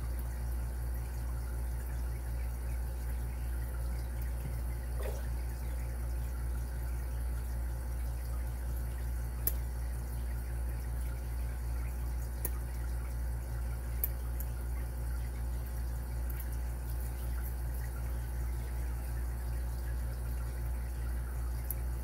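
Faint ticks and light scraping of a lock pick working the pin tumblers of a Carbine padlock under tension, a few sharp clicks spread seconds apart, over a steady low hum.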